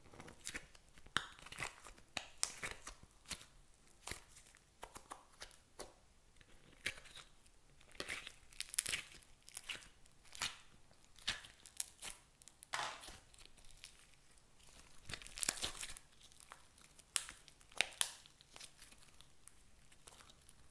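Foamy slime being squeezed by hand and pulled out of a flexible plastic compartment tray: irregular sticky crackling and squishing as it stretches and its air bubbles pop.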